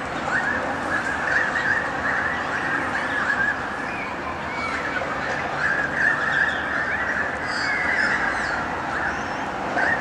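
A flock of birds calling continuously in the trees, many short chattering chirps overlapping at once. The calls come from birds agitated by a magpie perched in their tree.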